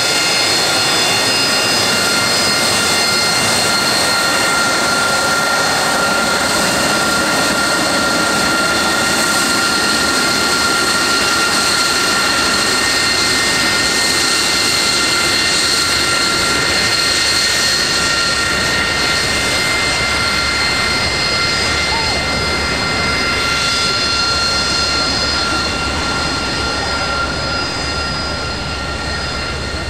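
Harrier's Rolls-Royce Pegasus turbofan running steadily: a loud rush with a high, multi-toned whine that holds a constant pitch, easing off slightly near the end.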